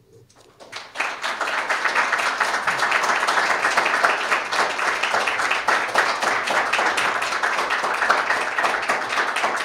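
Audience applauding, starting about a second in and staying steady.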